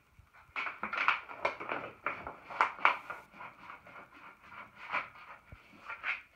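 Hands rubbing a sheet of thick wallpaper flat against the glued wall: a run of irregular scraping, rustling strokes, loudest in the first three seconds.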